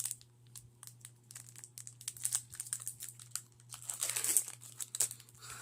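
Foil wrapper of a Pokémon TCG Astral Radiance booster pack crinkling as it is handled and torn open: a run of sharp crackles, with a longer rustle about four seconds in.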